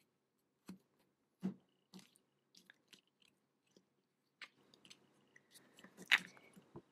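Small plastic-and-metal clicks and taps with a soft fabric rustle as a covered-button shell, its folded fabric and its back are handled in a plastic setting cup. About six seconds in comes the sharpest click, as the blue pusher presses the back into the shell.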